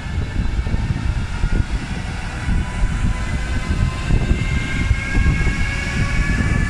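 Siemens Vectron electric locomotive pulling away under power: its traction converters give a whine of several tones that rises in pitch from about two seconds in, over a steady low rumble.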